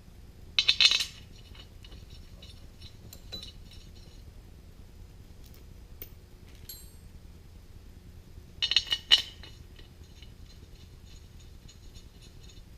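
Loose steel bolts clinking together as they are handled. The clinks come in two short bursts about eight seconds apart, with a few light ticks between.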